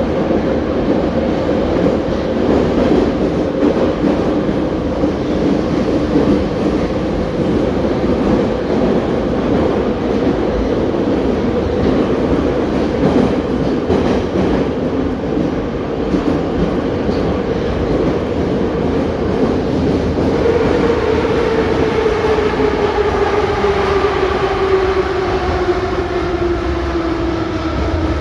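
81-717.5/714.5 'Nomernoy' metro train heard from inside the car, running through the tunnel with a steady rumble and wheel noise. About two-thirds of the way through a whine starts falling in pitch as the train slows into a station.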